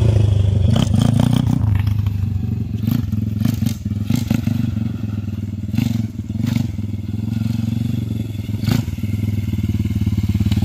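Motorcycle engine running at a steady, low speed, with a few sharp knocks and clatters over it.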